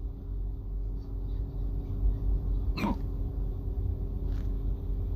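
A man's single hiccup, one short sharp catch about three seconds in, during a bout of hiccups that has lasted around forty minutes. A steady low hum runs underneath.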